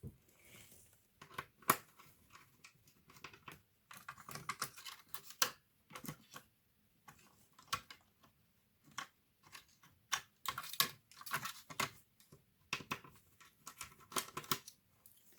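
Irregular small clicks and clatter from an HP 630 notebook's parts being handled during disassembly or reassembly, coming in short clusters with brief pauses between them.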